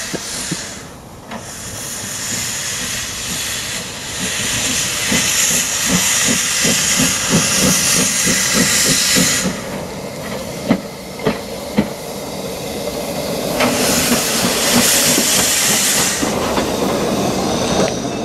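Robert Stephenson & Hawthorns 0-6-0ST saddle-tank steam locomotive working past under steam, with steady hiss and a run of regular exhaust beats, about three a second. Two sharp knocks come a little past the middle, then a loud rush of steam hiss for a couple of seconds.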